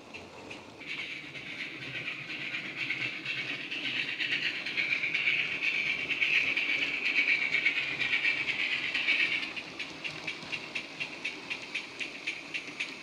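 Digital sound of a GWR 16xx pannier tank steam locomotive, played by a model's DCC sound decoder through its small speaker. A strong steam hiss builds from about a second in and cuts away about nine seconds in. Regular exhaust chuffs carry on under it and continue alone afterwards.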